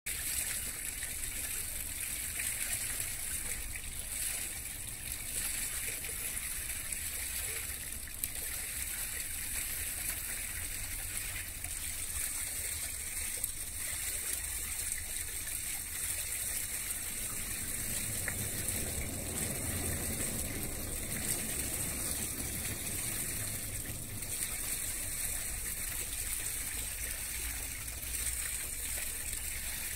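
Canal water moving and lapping in a steady hiss, with a low rumble that swells for a few seconds a little past the middle.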